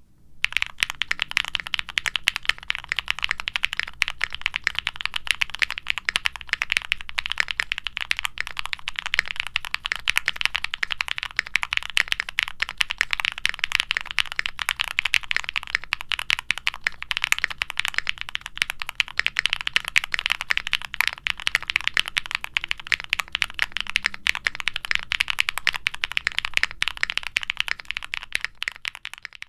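Fast, continuous typing on a Qwertykeys Neo65 mechanical keyboard, a dense stream of keystroke clicks. The keyboard has lubed Gateron Baby Kangaroo switches fitted with nylon top housings, a POM plate and foam dampening, with double-shot PBT keycaps. The switches give a marbly bottom-out and a subtle, snappy top-out.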